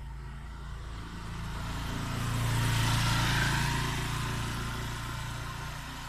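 A motor vehicle passing by, its engine and road noise swelling to a peak about three seconds in and then fading, over a steady low engine hum.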